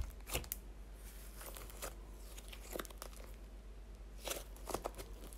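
Soft clay slime being pressed and squished by hand, giving a handful of short, irregular crackly pops.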